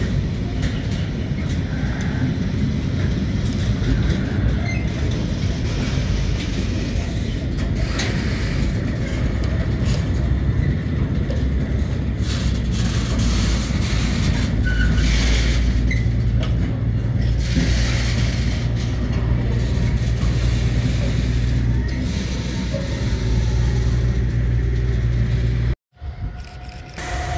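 Freight train of loaded container flat wagons rolling past close by: a steady low rumble with scattered wheel clicks and knocks. Near the end the sound cuts out suddenly and a quieter stretch follows with a steady tone.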